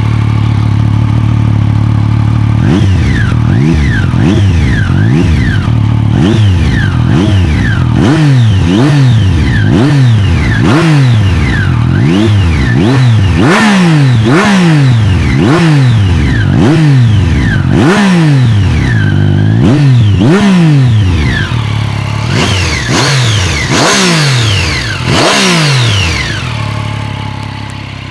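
Triumph Street Triple 675's 675 cc inline-three engine on its stock exhaust, idling and then revved in quick throttle blips about once a second. Near the end come a few higher revs before it settles back to idle.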